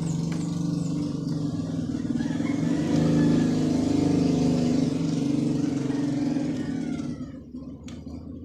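A motor vehicle engine running, growing louder towards the middle and fading away about seven seconds in, like a vehicle passing by.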